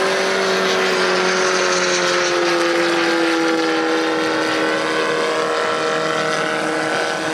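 Kolm four-stroke boxer engine on a clipped-wing Cub model airplane, running steadily in flight, its pitch sinking slowly.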